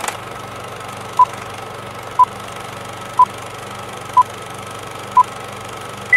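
Film-projector sound effect: a steady whirring clatter, with a short beep once a second, five times, then a higher beep as it cuts off, as in a film countdown leader.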